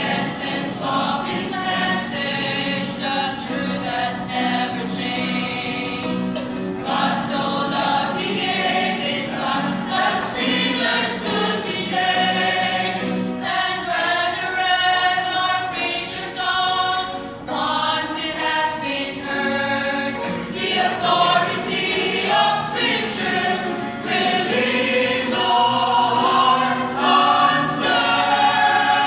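Mixed church choir of men and women singing a gospel song, growing a little louder in the last few seconds.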